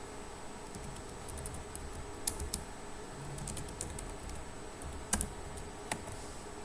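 Computer keyboard keys tapped in scattered, irregular clicks, some in quick little clusters, over a faint steady hiss.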